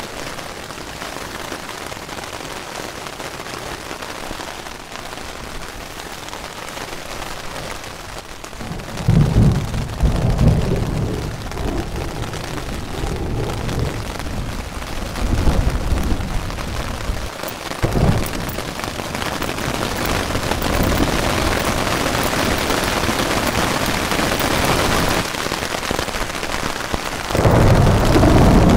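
Heavy rain falling steadily on a backpacking tent's fly, heard from inside the tent. Several short low rumbles come about nine, fifteen and eighteen seconds in, and a longer one comes near the end.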